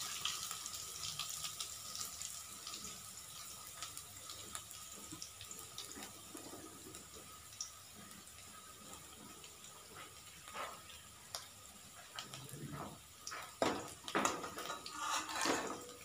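Chopped garlic and ginger sizzling in hot oil in a kadhai, a steady hiss with small pops that slowly fades. In the last few seconds a steel ladle scrapes and knocks against the pan as it stirs.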